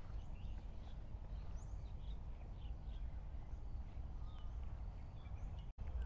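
Faint, scattered short bird chirps over a steady low rumble, with the sound cutting out for an instant near the end.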